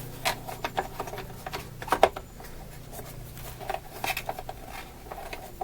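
Scattered light clicks and rustles of handling, the sharpest about two seconds in, over a faint steady low hum.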